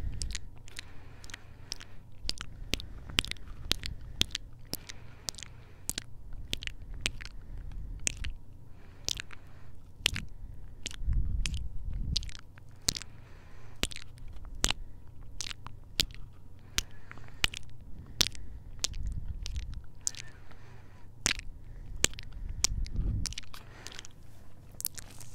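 Close-miked kisses and lip smacks pressed right against a Tascam handheld recorder's microphones: a quick, irregular run of wet clicks, a few a second, with a few stretches of low rumble in between.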